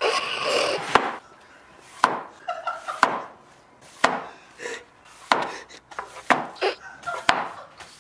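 Wooden-backed bristle broom sweeping a hard tiled floor: a sharp wooden knock about once a second as the broom head strikes, each followed by a short scratchy swish of the bristles.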